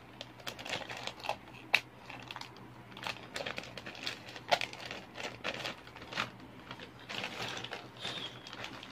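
White plastic mailer pouch being pulled open and crumpled by hand: irregular crinkling with sharp crackles and snaps, the loudest about two seconds and four and a half seconds in.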